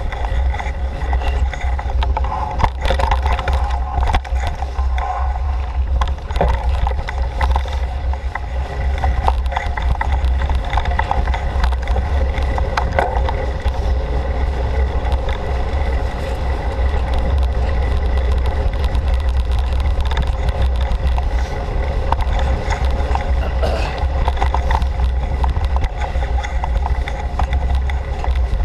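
Mountain bike rolling fast over a bumpy forest trail. Wind and vibration on the microphone make a steady low rumble, with frequent small rattles and knocks from the bike.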